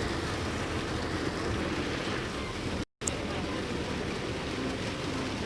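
Heavy downpour with a car driving through floodwater: a steady rushing wash of rain and water under the tyres. It cuts out briefly about three seconds in.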